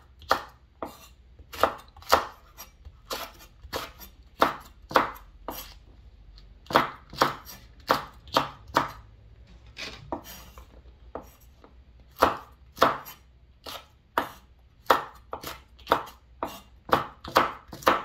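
Kitchen knife slicing red and green chili peppers on a wooden cutting board: a run of sharp knocks of the blade on the board, about two a second. The knocks grow softer for a couple of seconds past the middle.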